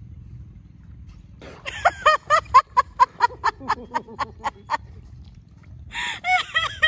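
A child laughing in rapid, high-pitched bursts, about five a second, in one long run from about a second and a half in and again near the end, over a low steady rumble.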